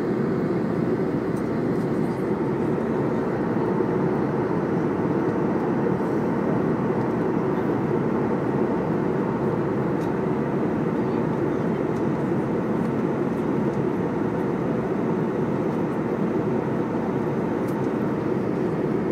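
Steady jet airliner cabin noise at cruise, the engines and airflow heard from a window seat beside the engine as an even, unchanging low drone.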